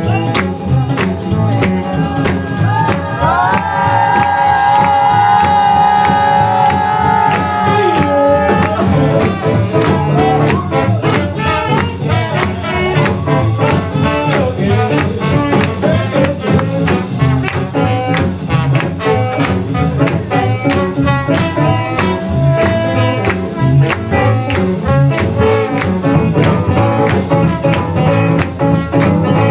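Live band playing upbeat swing-style jazz with a steady drum beat and bass. A lead line holds a long, bending note for several seconds about three seconds in, then the band carries on with the groove.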